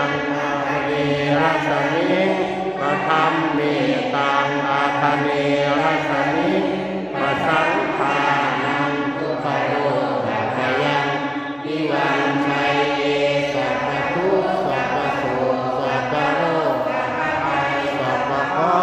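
A group of worshippers chanting Buddhist prayers together in a steady unison drone, led by a man's voice on a microphone, with two brief pauses for breath.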